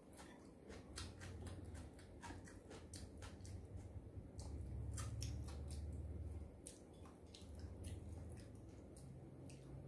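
A person chewing food close to the microphone: many short, crisp crunching and wet smacking clicks, over a low rumble that is strongest in the middle.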